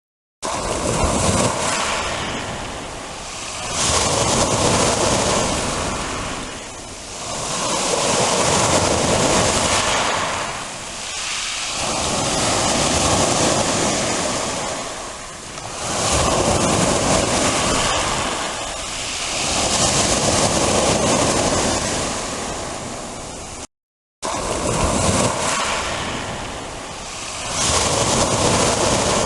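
Black Sea surf breaking and washing up the shore in repeated swells, each rising and falling over about four seconds. The sound drops out briefly near the end at an edit.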